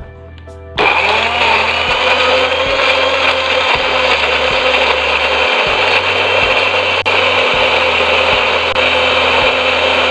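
A small electric blender starts abruptly about a second in and runs steadily, loud. It is grinding shallots, garlic, chillies, candlenuts and ginger-family roots with a little water into a smooth spice paste.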